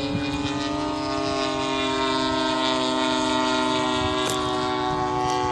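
Engine of a large radio-controlled scale warbird flying overhead, a steady droning tone whose pitch eases down slightly over the seconds.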